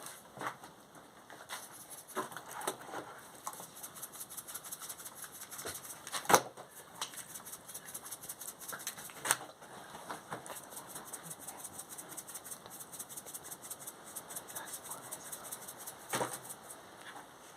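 Mojarra fish frying in oil on a comal, a dense fast crackling sizzle with a few louder pops about 6, 9 and 16 seconds in.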